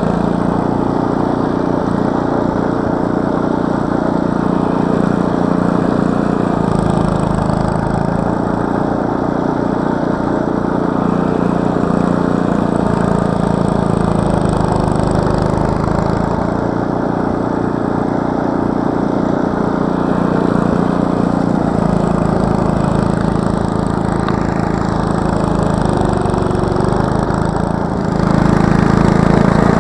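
Gasoline snowblower engine running steadily and loudly. Its pitch sags briefly a few times as it works through the snow. Near the end the sound steps up louder.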